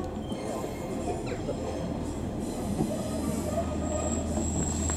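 Class 142 Pacer diesel railbus approaching slowly, its diesel engine running with a steady low hum that grows louder about halfway through. A thin high wheel squeal sets in near the end as the wheels take the curve.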